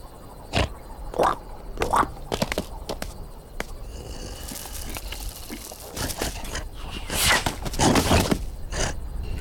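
Cartoon sound effects: a run of short rising swishes and clicks, then rustling and scraping noises, loudest near the end, as the animated lion rolls on the ground.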